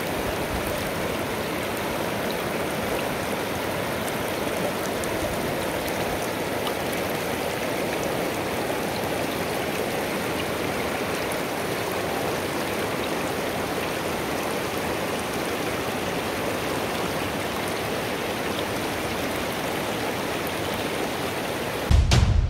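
Mountain torrent rushing steadily over rocks. A sudden loud low boom comes right at the end.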